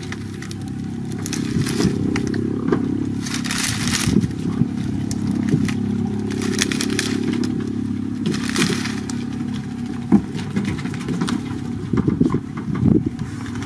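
Dry palm-leaf thatch crackling and scraping in short irregular bursts as a monkey clambers over it, over a steady low hum.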